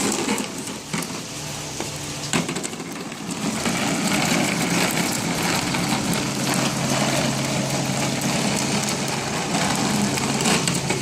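Steady hiss of rain falling, with a low steady hum underneath.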